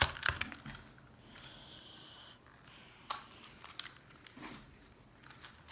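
Plastic clicks and clacks of a 3x3 speed cube being twisted and tugged by hand while a corner piece is pried at, a quick cluster at the start, then single clicks scattered through the rest.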